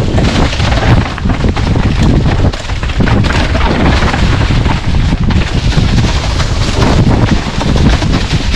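Loud, gusting wind buffeting the microphone, a dense rumbling rush that surges and dips without pause.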